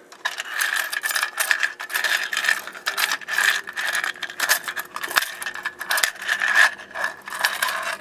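Fire alarm horn-strobe sounding a continuous harsh, rattling buzz over a steady high note.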